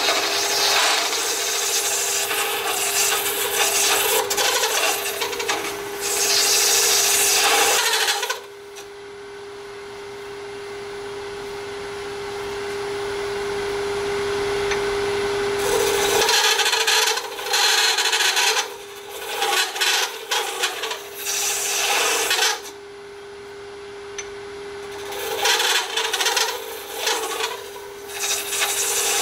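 Cast Alumilite resin being hollowed on a lathe: the hollowing tool scrapes in spells over the steady hum of the spinning lathe. For several seconds in the middle the cutting stops and only the lathe's hum is heard.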